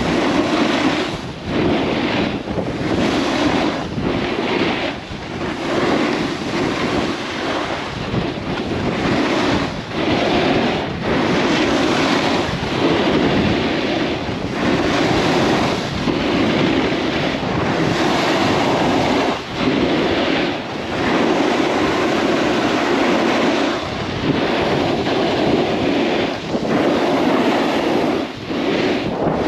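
Wind rushing over the microphone of a POV camera and edges scraping across packed snow on a run down the slope, the noise swelling and briefly dipping every second or two as the turns link.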